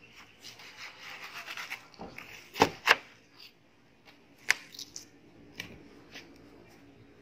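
A kitchen knife sawing through watermelon rind and flesh with a rasping scrape, followed by sharp knocks: two close together about two and a half seconds in, another near the middle, and a few softer ones after.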